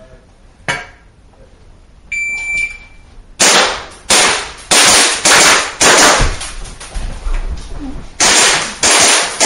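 An electronic shot timer beeps once, about two seconds in, as the start signal. A second or so later a string of gunshots follows: about five fired quickly, a short pause, then two more near the end, each shot echoing loudly in the indoor range.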